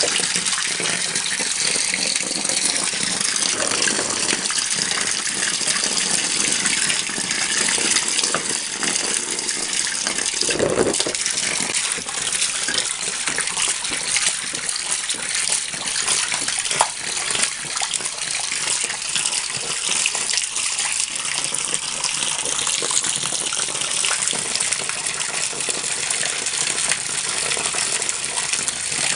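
Water from a garden hose pouring and splashing steadily into a partly filled plastic children's paddling pool.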